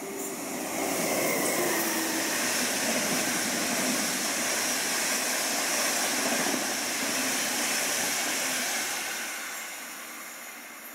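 A train passing on the railway: a steady rushing noise that swells about a second in, holds for several seconds and fades away near the end.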